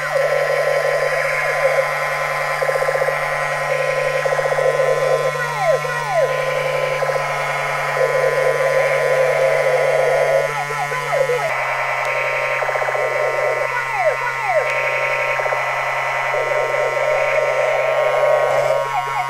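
Battery-operated toy MP5 gun playing its electronic firing sound effect through its small speaker: a fast rattling machine-gun noise with falling whistle-like swoops every few seconds, over a steady low hum.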